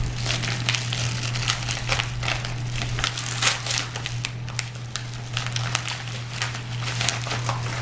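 Paper packaging crinkling and crackling irregularly as a gift parcel is torn open by hand.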